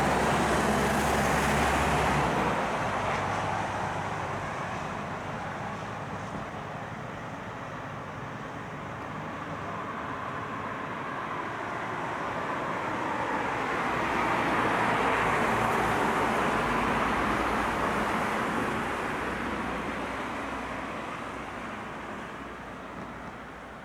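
Road traffic: passing vehicles make a steady rushing noise that swells and fades twice, loudest at the start and again past the middle, with a low engine hum that stops about two seconds in.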